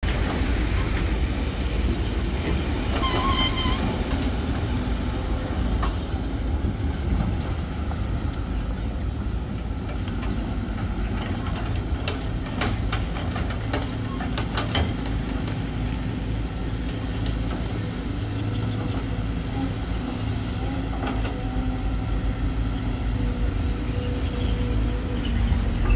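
Volvo EC210D crawler excavator's diesel engine running steadily under hydraulic load as it digs dirt. A short horn toot comes about three seconds in, and a few sharp knocks around the middle.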